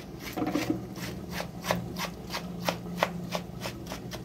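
Chef's knife chopping a peeled tomato on a wooden cutting board, the blade tapping the board in quick, even strokes about three a second.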